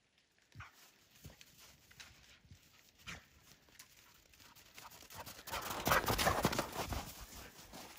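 A Norwegian Elkhound running over snow toward the microphone. First a few faint, separate paw thuds, then from a little past halfway a louder, close crunching and rustling as she arrives right at it, loudest about six seconds in.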